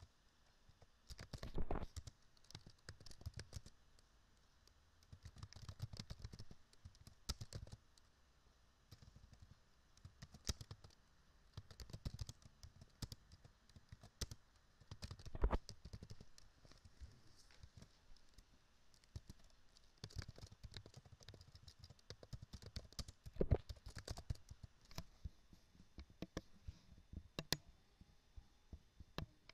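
Computer keyboard typing in short, irregular bursts of keystrokes, fairly faint, with mouse clicks in among them.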